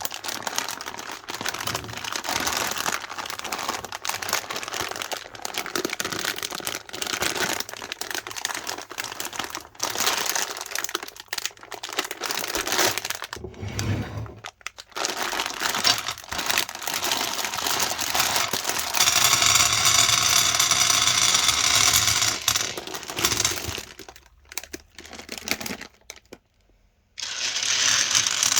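Crinkling and crackling as colourful fruity gum candies are handled and crushed in a meat grinder, with many sharp clicks and a denser steady stretch of grinding noise past the middle.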